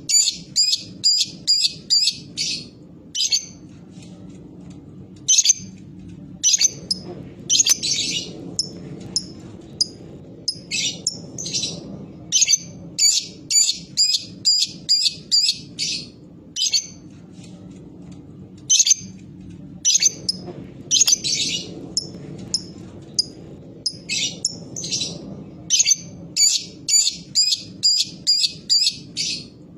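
Lovebird giving its rapid 'ngetik' calls: quick runs of sharp, high chirps, about five a second, broken by a few short chattering bursts. These are the calls used as a lure to set other lovebirds calling.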